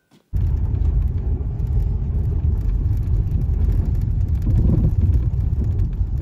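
Low, steady rumble of a car driving along a snow-covered dirt road, heard from inside the cabin: engine and tyre noise, starting abruptly just after the start.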